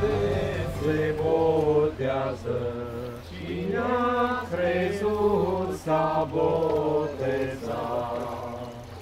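Background music: a voice singing a slow, chant-like melody in held phrases over a steady low drone, fading near the end.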